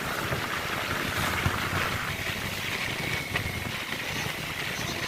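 Motorcycle on the move: a steady rush of wind over the microphone with engine and road rumble underneath.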